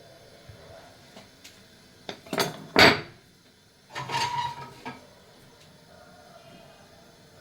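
Kitchen dishes and utensils clattering: a few knocks about two seconds in, the loudest near three seconds, then a second rattle with a brief ring about four seconds in.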